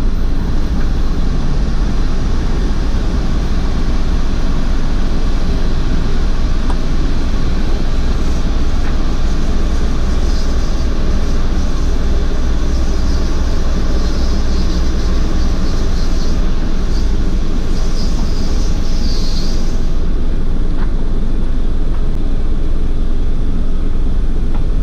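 Drive-through automatic car wash running: a loud, steady rumble, with a high hiss coming and going through the middle that stops about twenty seconds in.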